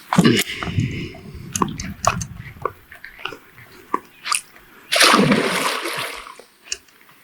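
Hooked fish splashing and thrashing in the shallows as it is brought in to be landed. A loud splash at the start churns on for a couple of seconds, and a second big splash comes about five seconds in.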